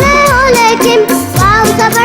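Bollywood-style film song: a vocal melody over steady drum beats.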